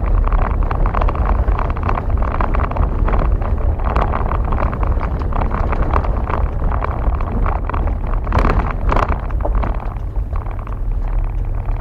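Vehicle driving slowly on an unpaved road: a steady low engine and tyre rumble with constant rattling, and two sharper knocks about eight and a half seconds in.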